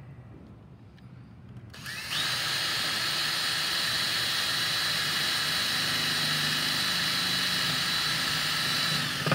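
Cordless drill spinning up about two seconds in to a steady high whine as it bores a 1/16-inch hole for the torsion spring through an aluminium engine case casting, winding down near the end.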